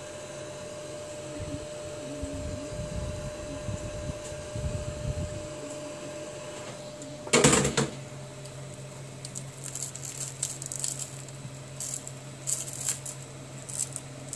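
Hot air gun blowing as the tablet's cracked touchscreen glass is heated, with a loud knock about seven and a half seconds in. Then come sharp crackling clicks as a pry tool and fingers lift the glass off its adhesive.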